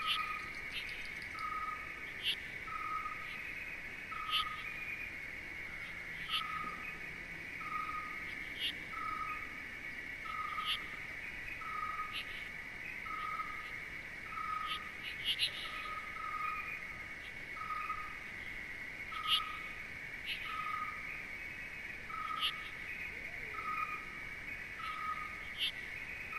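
Nature soundscape: a steady high insect chorus, a short pitched note repeated about once a second, and brief sharp high chirps every couple of seconds.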